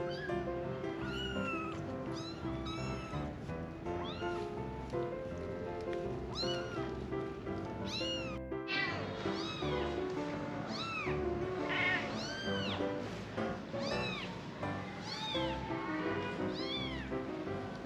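Kittens mewing over and over, short high cries that rise and fall in pitch, with background music playing under them.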